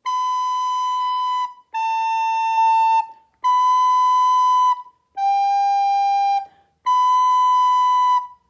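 Soprano recorder playing the interval exercise B, A, B, G, B: five separate held notes of about a second and a half each, with short breaks between them, going back to the high B after each lower note.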